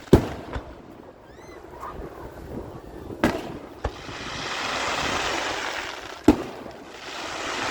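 Fireworks shells bursting: three sharp loud bangs about three seconds apart, with fainter pops and a hiss that swells and fades between them.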